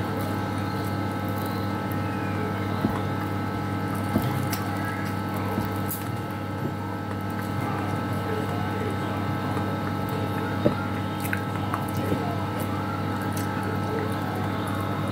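Eating by hand: a few sharp clicks and smacks as fried fish is picked apart with the fingers and chewed, over a steady background hum.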